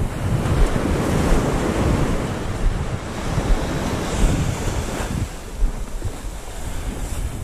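Sea waves washing, with wind buffeting the microphone; the wash builds over the first second or so and eases after about five seconds.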